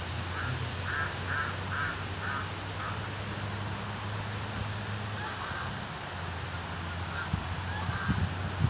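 A quick run of about six short, sharp bird calls near the start and a few more scattered later, over a steady low hum and hiss. A few dull thumps near the end.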